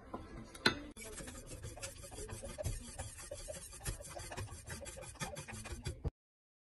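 Wire whisk scraping and rattling fast against a stainless steel saucepan while whisking a white sauce. A sharp knock comes about half a second in, and the sound cuts off suddenly near the end.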